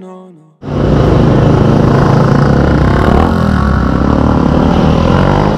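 Sport motorcycle engine running loud and revving, cutting in suddenly about half a second in, with its pitch climbing in the second half.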